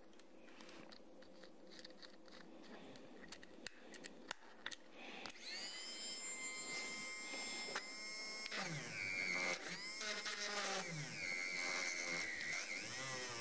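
Small clicks of a fine bit being fitted into the collet of a 12 V mini drill, then its motor spins up about five seconds in to a high, steady whine. The pitch sags and recovers a few times as the bit drills into a copper-clad circuit board.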